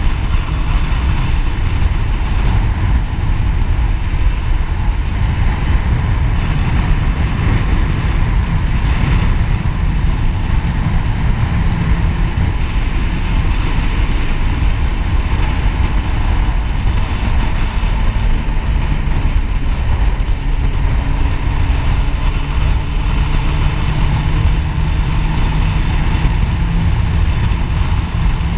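Motorcycle cruising at a steady speed, heard from the rider's seat: a steady rush of wind noise with the engine's even hum underneath.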